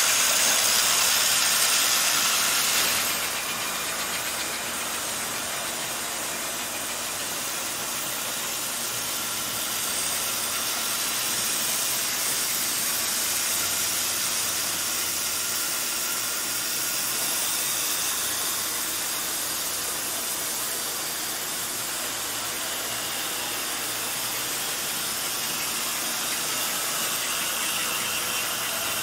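Gilbert HO model steam locomotives and freight cars running on the layout track: the motors and wheels give a steady hiss-like running noise, louder for the first three seconds, then even.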